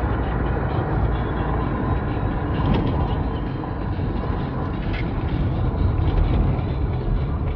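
Steady road and engine noise of a moving car heard from inside the cabin, a continuous low rumble with a couple of faint knocks about three and five seconds in.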